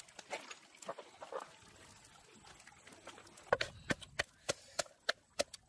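A run of sharp knocks or taps, about three a second, beginning a little past halfway, after a stretch of faint scattered sounds.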